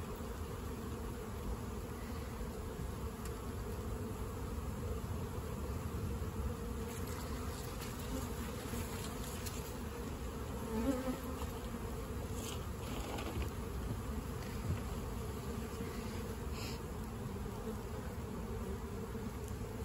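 Swarm of honeybees buzzing steadily around a nuc box and the open cooler they have just been shaken from, a dense hum of many bees at once. It swells briefly about halfway through, and a few faint clicks come through.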